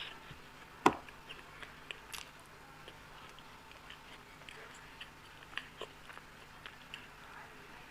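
A person chewing and eating Indian sweets: scattered small wet mouth clicks and smacks. One sharp knock about a second in is the loudest sound.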